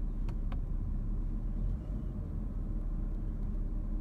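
Audi Q7's 3.6-litre VR6 engine idling in park, a steady low rumble heard from inside the cabin, with two light clicks just after the start.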